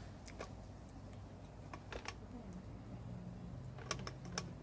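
A few faint, scattered clicks and light crinkles from the wrapped heads of two large lollipops being handled.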